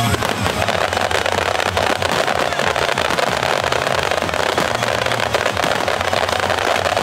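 A rapid barrage of aerial firework shells bursting and crackling, many reports close together with no gaps between them.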